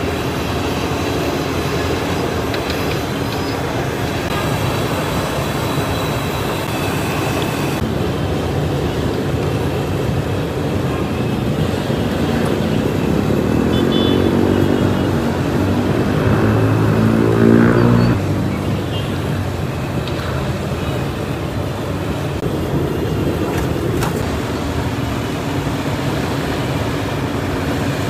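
Steady road traffic noise, with one vehicle's engine rising in pitch as it accelerates past, loudest about seventeen seconds in and cutting off suddenly just after.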